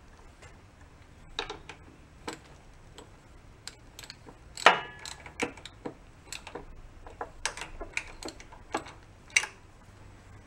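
Irregular metal clicks and clinks of a hand wrench working the bolt on a lawn tractor engine's governor and throttle linkage bracket, with one louder ringing clank about four and a half seconds in. The linkage is being reset to its original position on the bolt.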